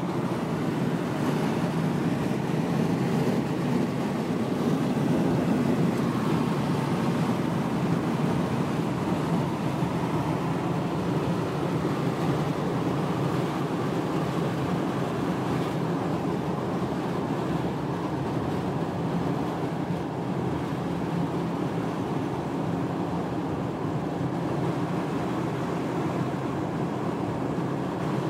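Steady road and wind noise inside a car cruising at highway speed: an even rush of tyres and air with no changes.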